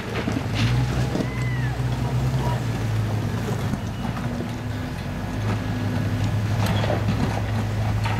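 Off-road Jeep's engine running steadily at low revs as it crawls up over rocks, with a few sharp knocks and crunches of tyres and rock along the way.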